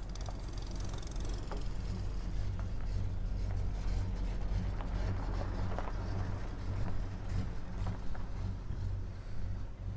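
Steady low engine rumble, with a few faint knocks.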